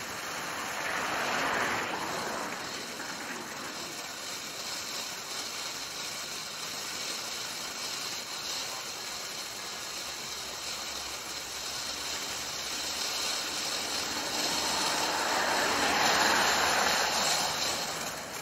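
Ground fountain firework burning, a steady rushing hiss of spraying sparks that swells louder about a second in and again near the end.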